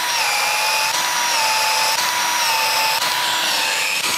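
Battery-powered Milwaukee Uponor PEX expansion tool running, stretching the end of a PEX tube and its collar open to take a fitting. Its motor gives a steady whine whose pitch dips slightly about once a second.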